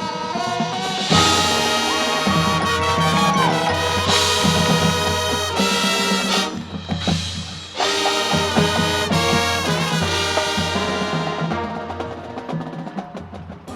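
Marching band playing: a loud full brass ensemble of trumpets and trombones over drums, with a big ensemble hit about a second in, a brief break in the middle, and the sound thinning near the end.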